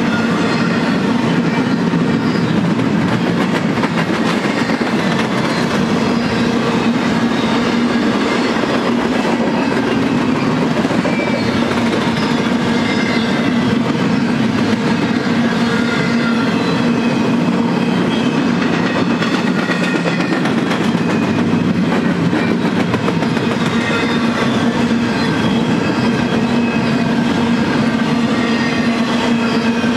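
Empty intermodal well cars of a long freight train rolling past at a steady speed, wheels running on the rails, with a steady low hum underneath.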